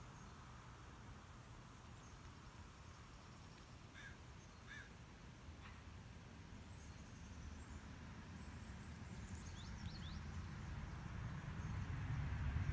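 Outdoor ambience: two short bird calls about four seconds in, then faint high chirps and quick falling bird notes, over a low rumble that grows louder toward the end.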